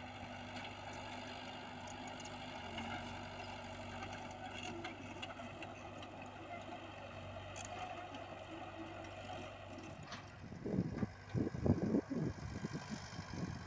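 Komatsu PC78UU mini excavator's diesel engine running steadily as the machine travels on its tracks over loose soil. From about ten seconds in, gusts of wind buffet the microphone with loud, irregular rumbles that drown the engine.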